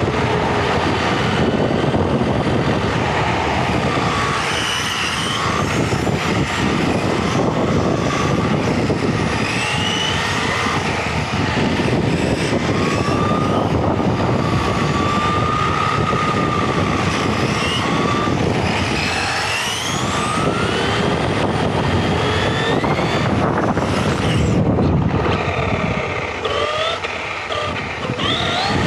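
Onboard sound of an electric RC touring car driving fast: a loud, steady rush of tyre, drivetrain and wind noise. Over it, the motor's whine rises and falls in pitch as the car speeds up and slows.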